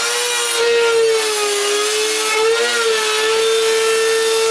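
Power tool running at a steady high whine as it cuts holes through the trailer's wooden roof, its pitch wavering slightly under load.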